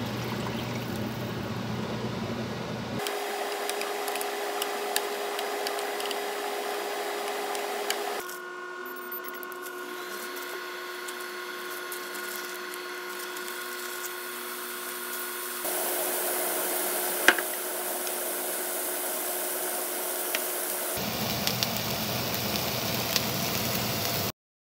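Kitchen cooking sounds cut together: a steady appliance hum with a constant whine, small handling clicks and one sharp click, and a sizzling hiss later on as pork neck and king oyster mushroom pieces fry in a pan.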